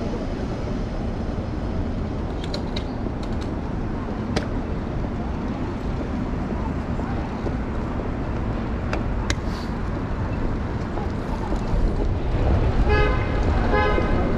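Steady rumble of wind and city traffic heard from a moving bicycle, with a few light clicks and a brief pitched, horn-like tone near the end.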